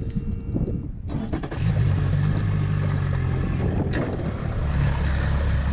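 Yamaha 70 hp outboard motor running, coming up louder about a second and a half in and then holding a steady drone as the skiff gets under way.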